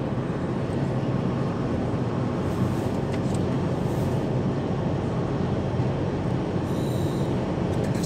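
Steady road noise inside a moving car's cabin at motorway speed: a low rumble of tyres and engine.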